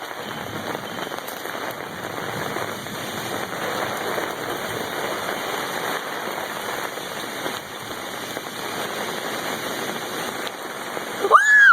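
Torrential rain from a severe thunderstorm, pouring down steadily and heavily. Just before the end a brief, loud tone glides up and back down.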